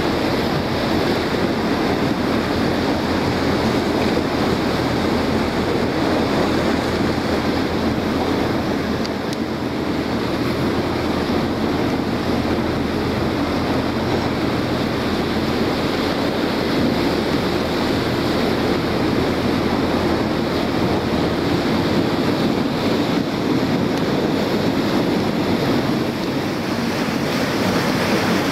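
Steady wind buffeting the microphone and choppy harbour water slapping against a small boat, with a low, even engine drone underneath.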